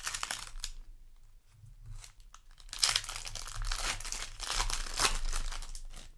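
Foil play booster pack wrapper crinkling and tearing as it is opened, in crackly bursts, loudest about three seconds in and again around five seconds.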